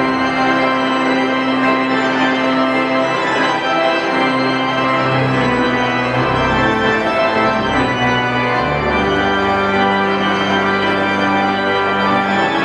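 Pipe organ, the rebuilt Schantz organ, playing full sustained chords that change every second or so over a moving bass line.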